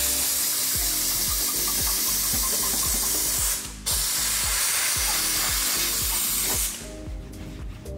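Handheld detailing steamer's nozzle hissing steadily as it blasts steam onto car paint to heat and soften old trim-adhesive residue. The steam cuts out for a moment a little over three and a half seconds in, then stops near the end, leaving background music with a steady beat.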